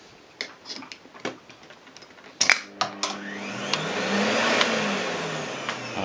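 Proxxon CW-matic workshop vacuum cleaner switched on with a sharp click about two and a half seconds in; its motor spins up with a rising hum and settles into a loud steady rush of suction. It seems louder than its rated 75 dB.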